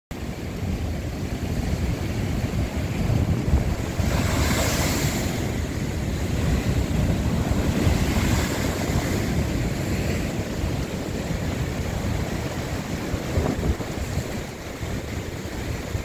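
Big swell waves breaking and crashing against rocks, with foamy water washing across the rock shelf. Louder splashes surge about four seconds in and again around eight seconds. Wind rumbles on the microphone throughout.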